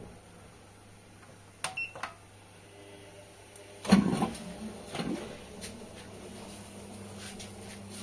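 Button clicks and short beeps from the control panel of an LG Direct Drive front-loading washing machine as it is set, followed by two dull thuds about a second apart and then a low steady hum.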